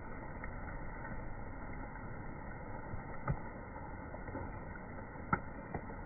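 Steady, muffled outdoor background noise, with two sharp clicks about three and five seconds in and a fainter one just after.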